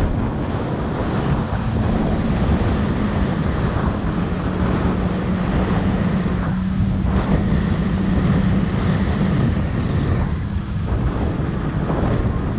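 Jet ski engine running steadily under way, its pitch wavering slightly, with heavy wind and water rush on the camera microphone.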